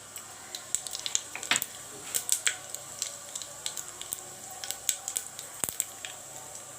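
Cumin seeds sizzling and crackling in hot mustard oil, with a steady hiss and many irregular sharp pops as the seeds splutter.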